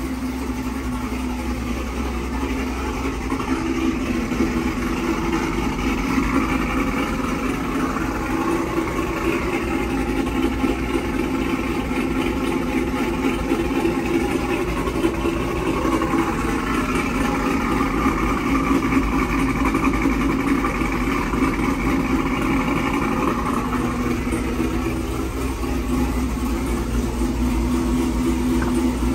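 Cammed GMC Sierra's V8 idling steadily while it warms up after a cold start.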